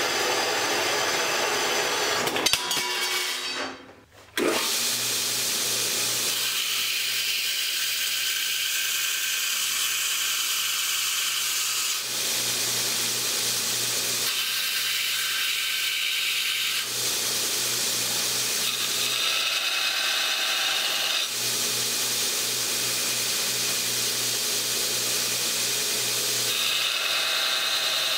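Horizontal metal-cutting bandsaw running through a steel rod for the first few seconds. After a brief break, a belt grinder's motor hums steadily while steel rod and plate are pressed against the abrasive belt in several stretches of harsh grinding.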